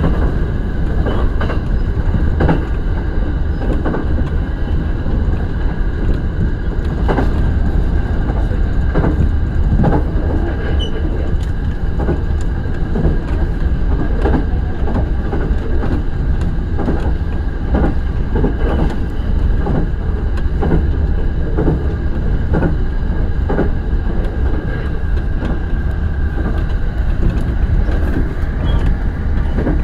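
Shinano Railway SR1 series electric train running at speed, a steady rumble of wheels on rails with irregular clicks and knocks from the track and a steady high tone.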